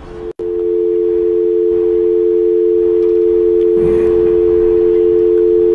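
Telephone dial tone, two steady tones sounding together, coming over the phone-in line because the caller's call has dropped. It cuts in about half a second in, after a brief dropout, and holds steady.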